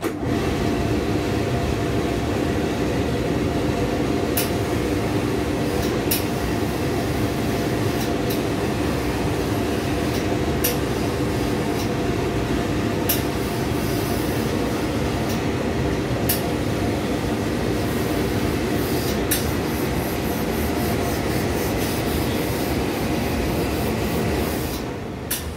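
Steady motor hum and rushing air of a pressing table's vacuum blower. It switches on abruptly at the start and cuts off near the end, with a few sharp clicks along the way.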